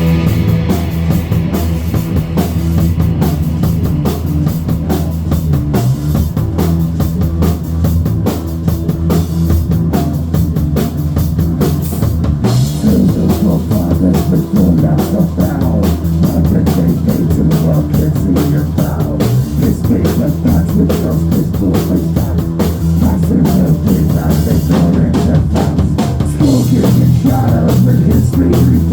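Live rock band playing an instrumental passage at high volume: heavy distorted bass and guitar over a fast, steady drum kit beat.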